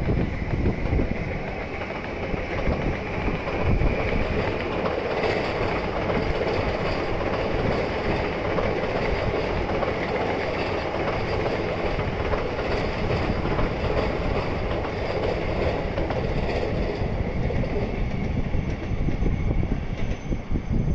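JR electric train passing on the tracks below, a steady rolling roar that builds a few seconds in and eases off near the end.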